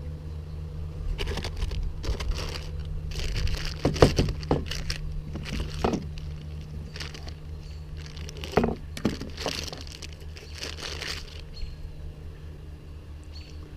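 Bicycle hand tools being handled and moved about in their kit: scattered clicks, knocks and short rustles, the sharpest knocks about four and eight and a half seconds in, over a steady low hum.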